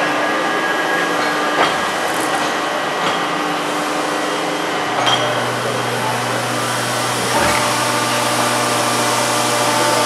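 Plastic injection moulding machine running with a steady mechanical hum, a low hum stepping in about halfway through and holding, with a few sharp clicks and a low thump.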